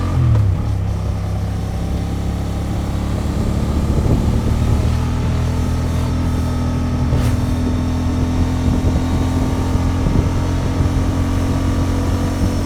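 Honda XL750 Transalp's 755 cc parallel-twin engine running through its stock exhaust. The engine note drops sharply right at the start, then holds steady and climbs slowly in pitch.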